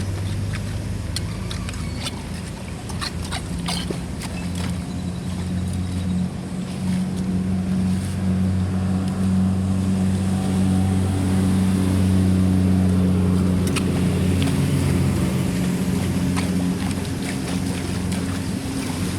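An engine running steadily, getting louder through the middle, with a few sharp clicks in the first few seconds.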